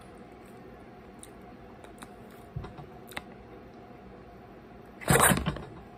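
A few faint clicks and taps, then about five seconds in a loud, brief scraping rustle as a pizza slice is handled on a plate.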